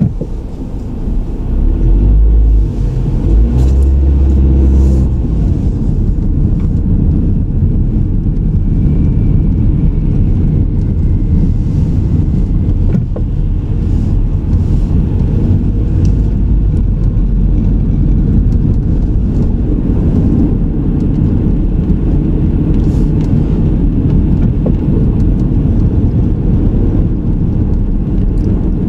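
Car driving on the road, heard from inside the vehicle: a steady low rumble of engine and road noise, heavier and louder for a few seconds near the start.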